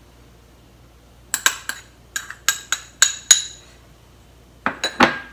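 Metal spoon clinking against white ceramic bowls while sugar is spooned and scraped into a bowl of matcha powder. There is a quick run of sharp, ringing clinks about a second in, then a few more near the end.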